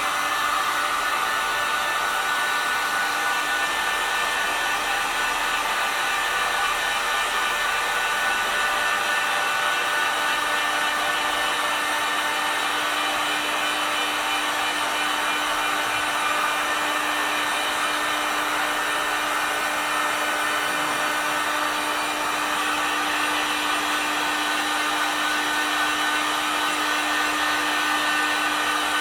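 Electric heat gun blowing steadily, warming a still-wet vinyl decal to speed its drying before the pick-up tape is peeled. A steady motor whine, with a low hum joining about nine seconds in.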